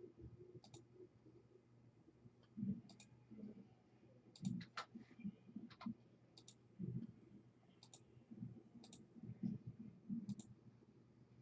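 Faint, irregular computer mouse clicks, a second or more apart and some in quick pairs, with soft low knocks between them.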